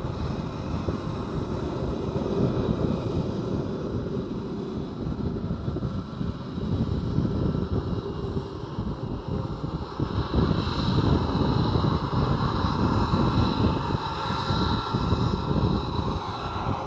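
F-22 Raptor's twin Pratt & Whitney F119 turbofans running at idle on the ground: a steady jet rumble with a high turbine whine that grows louder about ten seconds in.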